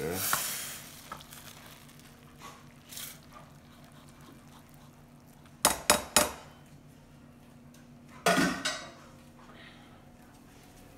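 Cookware clatter as ramen noodles and broth are poured from a saucepan into a bowl: a short rush of pouring at the start, three sharp clinks of metal on the bowl about six seconds in, and another brief clatter a little after eight seconds.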